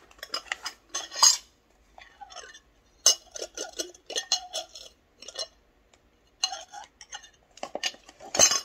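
A glass disinfectant jar and its cardboard box being handled: a run of light clinks, clicks and cardboard scrapes as the jar is taken out and put back, with a louder knock near the end.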